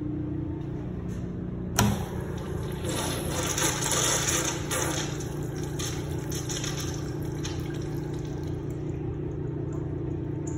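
Toto UT447 urinal flushed with its manual flushometer valve: a sharp click about two seconds in as the valve opens, then a rush of water that is strongest for a few seconds and eases into a steadier run.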